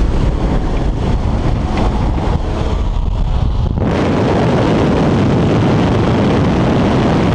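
Steady engine and propeller drone inside a small skydiving plane's cabin. About four seconds in the jump door opens and a loud rush of wind floods in and stays.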